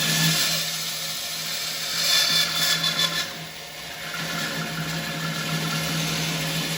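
Grizzly G0555 14-inch bandsaw with a 1/2-inch 3 TPI blade running and cutting through a 5-inch-thick ash blank. The motor hum stays steady while the cutting noise swells about two seconds in, drops off sharply a second later, then picks up again.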